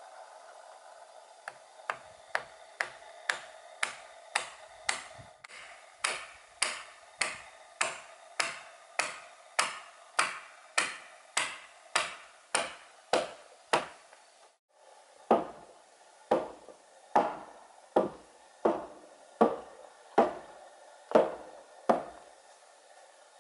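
Claw hammer striking a wooden peg driven into a hewn log, a steady series of sharp blows about two a second. After a short break about two-thirds of the way through, a slower series of heavier blows with a deeper thud, about one every half second or more.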